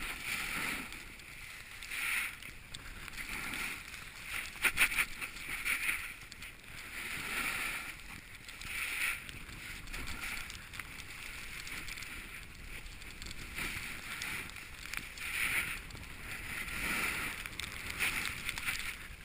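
Edges carving and sliding through wet, slushy snow, the hiss swelling and fading with each turn every second or two. A brief clatter of sharp clicks about five seconds in.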